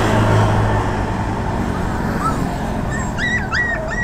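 Two-month-old puppies whimpering: a few short, high-pitched whines near the end, over steady traffic noise. A low engine hum fades out in the first second.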